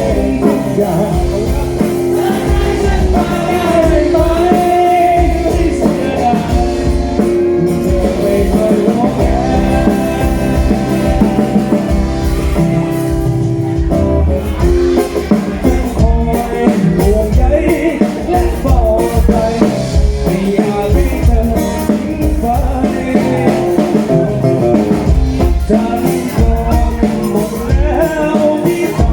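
Live band music in a rock style: a drum kit and bass keep a steady beat under guitar and a melody line, loud throughout.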